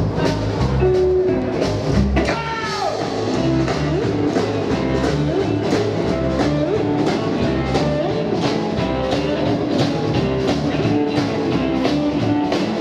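Live rockabilly band playing: electric guitar, upright double bass and drum kit over a steady, even beat, with a short downward slide in pitch about two seconds in.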